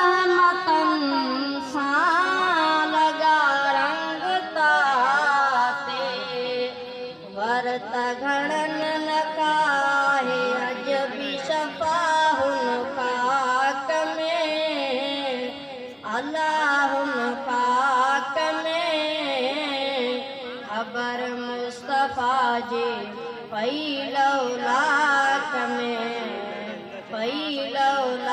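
A boy singing a Sindhi naat, a devotional song in praise of the Prophet, in long ornamented phrases with gliding, held notes.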